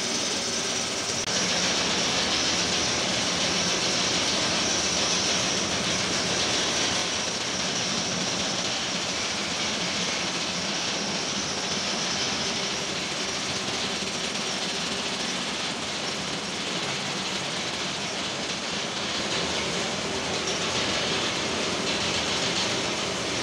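Steady mechanical running noise, an even hiss over a low hum, getting a little louder about a second in and then holding level.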